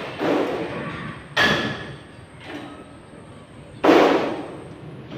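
Thin galvanized iron sheet banging three times as it is worked, each bang sudden and fading over about a second; the last, near the end, is the loudest.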